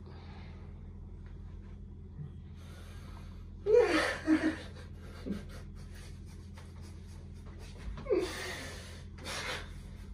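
Men stifling laughter: short snorts and breathy bursts of held-in laughing, about four seconds in and again around eight and nine seconds in, over a steady low hum.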